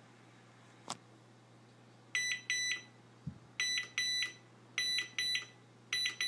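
Lexus car's electronic beeper sounding four double beeps, a pair roughly every second and a quarter, each beep a short, high, steady tone. A sharp click comes about a second in, and a low thump just after three seconds.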